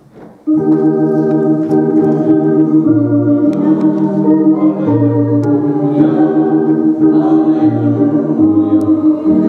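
Organ playing sustained chords with a moving bass line, starting abruptly about half a second in.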